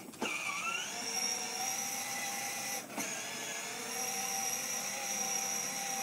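Battery-powered toy ride-on four-wheeler's electric motor and gearbox whining as it drives. It starts with a click and rises in pitch over the first second as it gets going. It drops out briefly about three seconds in, then carries on steadily.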